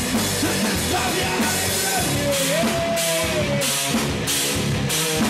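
Live rock band playing loud: two electric guitars, bass guitar and drum kit. A long held note that bends in pitch stands out from about two to four seconds in, while cymbals strike on the beat.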